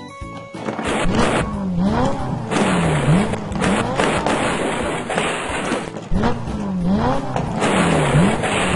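Vehicle engine-revving and tyre-screech sound effects. The engine pitch repeatedly dips and rises again over a continuous rushing, screeching noise.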